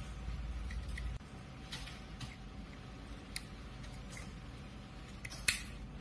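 Plastic smoke alarm and its mounting base handled and turned against each other, giving a few small plastic clicks and scrapes, the loudest a sharp click about five and a half seconds in.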